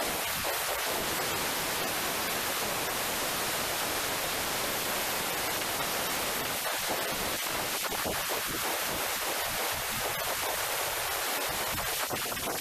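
Compressed air from a blow-gun nozzle hissing steadily as it blasts dust out through a portable electric heater's vents and fan housing.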